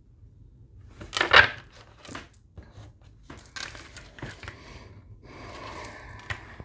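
Tarot cards being handled on a tabletop: a loud rustle and slide of cards about a second in, then several short taps and scrapes, and a longer stretch of card rustling near the end.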